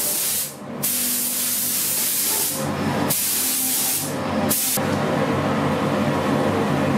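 Compressed-air gravity-feed spray gun hissing as it sprays a coat onto a carbon-fibre helmet shell, with a brief break under a second in and short breaks around the middle, where the trigger is let off.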